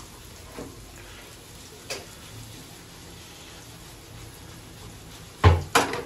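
A couple of light clicks, then two sharp knocks in quick succession near the end, over a faint steady hiss.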